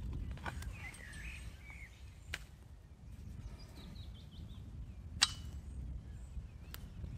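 Low wind rumble on the microphone with birds chirping, and a few sharp knocks from a hand post-hole auger being worked in the soil, the loudest about five seconds in.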